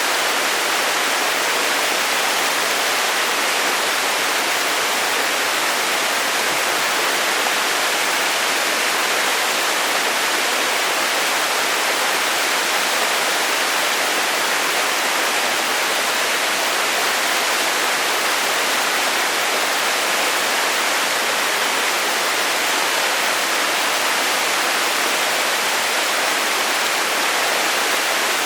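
A waterfall: falling water rushing in a steady, unbroken hiss with no change in level.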